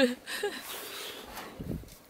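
A mouthful of beer drunk from a can, with a short low gulp near the end.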